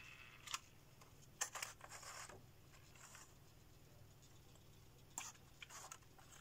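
Near silence with a few faint knocks and scrapes as a laser-cut plywood clock model is handled and turned over in the hands.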